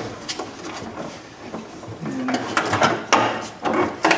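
A wiring harness and a door regulator panel being handled inside a VW Beetle's front door. Scattered clicks, knocks and rubbing sounds come as the harness and cable are pushed through and the panel shifts, busiest in the second half, with one short squeak a little after two seconds in.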